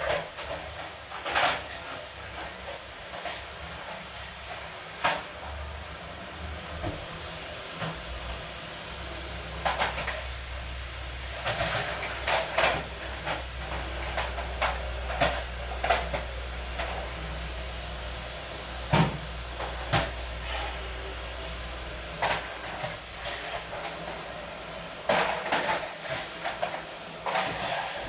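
Scattered knocks, bumps and clatter of household objects being handled and put away during house cleaning, over a steady hiss. A low hum comes in about eight seconds in and stops after about twenty seconds.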